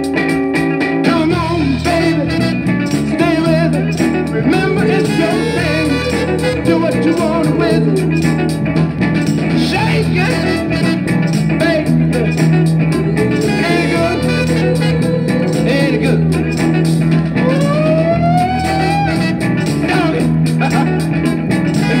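A 7-inch vinyl single playing on a turntable: a groovy track with guitar over a steady bass line and a singing voice.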